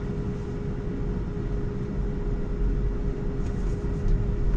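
Low rumble and a steady hum inside a Tesla electric car's cabin as it pulls away from a stop, growing a little louder near the end.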